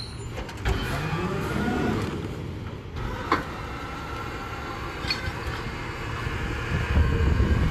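Rear-loader garbage truck running with a steady low rumble while trash is loaded by hand into its hopper, with scattered clattering knocks and one sharp bang about three seconds in.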